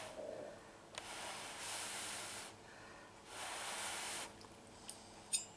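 A person blowing on a very hot forkful of food to cool it: two long puffs of breath, about a second in and again after three seconds. A short click near the end.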